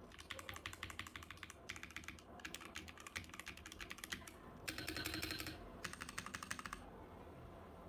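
Typing on a Zifriend ZA68 mechanical keyboard: fast runs of key clacks in four bursts with short pauses between them. The third burst, about five seconds in, is the loudest and densest, and the typing stops about a second before the end.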